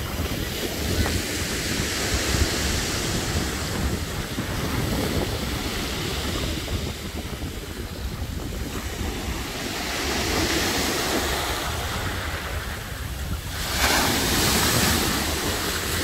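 Black Sea surf: waves breaking and washing up the shore in a steady rush, with wind buffeting the microphone in a low rumble. A bigger wave breaks and washes in loudly about fourteen seconds in.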